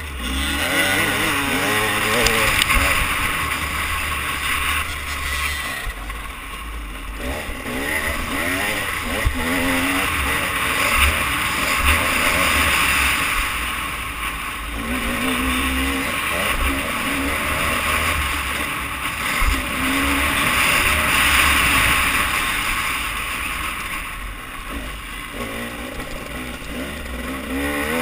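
Motocross dirt bike engine revving up and down through the gears as it is ridden round a track, heard from a helmet camera on the rider, with wind buffeting the microphone.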